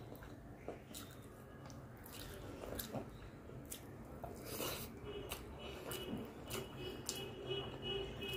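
Eating rice by hand: fingers squishing and mixing basmati rice with curry on a steel plate, and chewing a big mouthful, with scattered short wet clicks.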